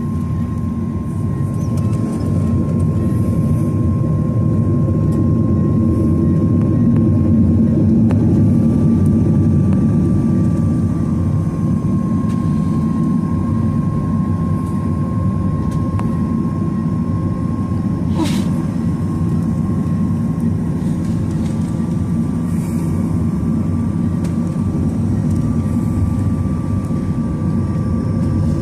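Boeing 737-900ER's CFM56-7B jet engines heard inside the cabin: a loud, steady rumble with a thin high whine above it that climbs slightly about ten seconds in. A single faint click comes about eighteen seconds in.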